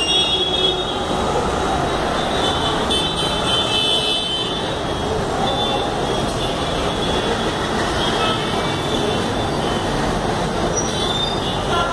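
Commercial kitchen exhaust system running: a steady rushing roar, with a faint high squeak that comes and goes.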